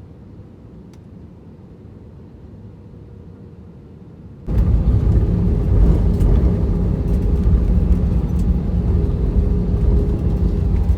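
Airliner cabin noise: a faint steady hum, then a little under halfway through a sudden step up to a much louder, steady low rumble with a drone in it.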